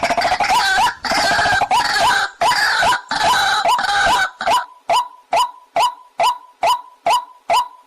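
Waterhen calling. A dense run of overlapping notes for about the first four seconds gives way to a steady series of short, repeated single notes, about two a second.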